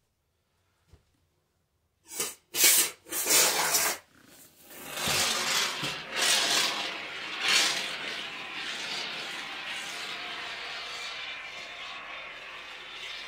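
Can of expanding spray foam being dispensed onto a subfloor: a few short, loud spurts about two seconds in, then a steady hiss as the foam is laid out in long beads.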